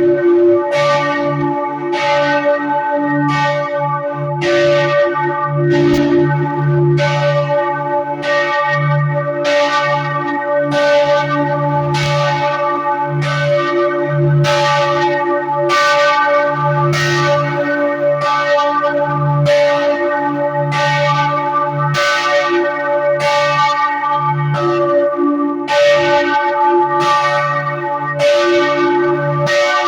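Freiburg Cathedral's church bells ringing the midday peal: a loud, continuous ringing with a fresh clang about once a second, each stroke ringing on into the next over a deep, lingering hum.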